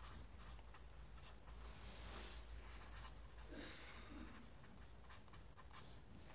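Sharpie fine-point marker writing on a paper legal pad: faint, irregular strokes of felt tip on paper as a word is written out.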